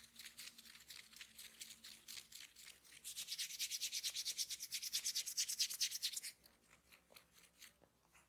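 Hands rubbing rapidly over hair and scalp in a head massage: a fast, even run of scratchy strokes, about ten a second, that grows louder about three seconds in and stops suddenly a little after six seconds.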